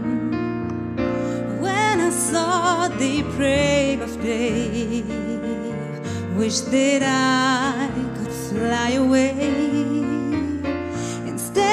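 A man and a woman singing a slow duet with strong vibrato, sometimes on different pitches at once, over piano accompaniment.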